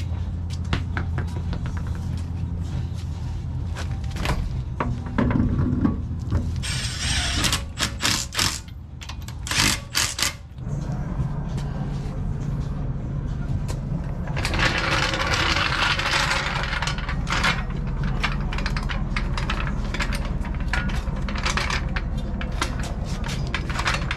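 Clanks, knocks and rattles of hands-on car work with a wheel and a floor jack, with two longer stretches of louder noise about seven and fifteen seconds in, over a steady low hum.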